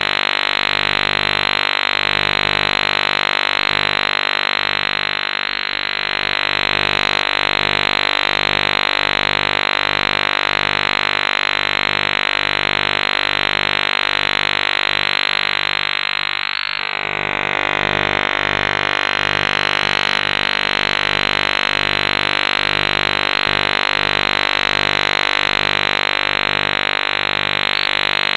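Harsh, fuzzy electronic tone: a steady buzzing drone of many layered pitches, loud and unbroken, with two brief dips about five and a half and seventeen seconds in.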